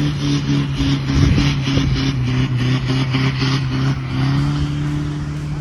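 Off-road vehicle engine running at fairly steady revs, its pitch sagging slightly about two seconds in and picking back up near four seconds. Over the first two-thirds comes a quick series of sharp ticks or spatters, about four a second.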